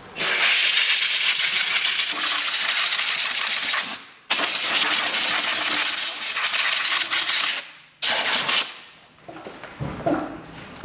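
Compressed-air blow gun on a coiled air hose blasting dust and dirt off the top of an engine, in three bursts: two long blasts of about four and three and a half seconds, then a short one.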